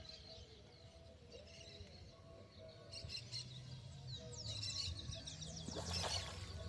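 Birds chirping: a fast run of short downward-sliding calls starts about four seconds in, over faint background noise, with a brief rushing noise shortly before the end.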